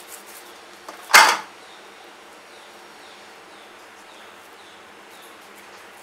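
A single brief metal clank about a second in, as the brass sev-press cylinder knocks against the steel plate, then only faint room noise while dough is pressed into it by hand.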